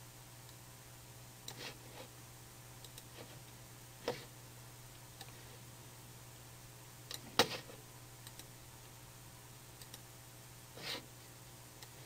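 Computer mouse clicking a few times at scattered moments, the loudest click about seven seconds in, over a faint steady low hum.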